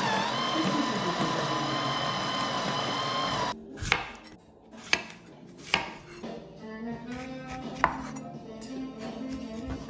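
Electric juicer motor running with a steady whine, switched off about three and a half seconds in. A few sharp knocks follow, as parts or produce are handled on the counter.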